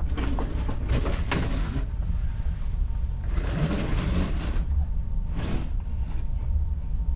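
Sea water rushing and splashing past a ship's hull, heard through a porthole as three hissing washes, the last one short, over a steady low rumble from the ship.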